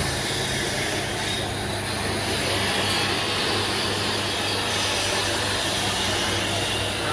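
Steady machine whir with a low hum underneath, unbroken throughout.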